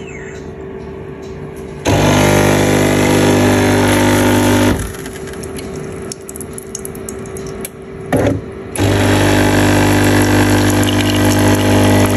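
Built-in automatic espresso machine brewing. A loud steady machine hum starts about two seconds in and stops about five seconds in. After a quieter stretch with a few clicks and a short burst near eight seconds, the hum starts again.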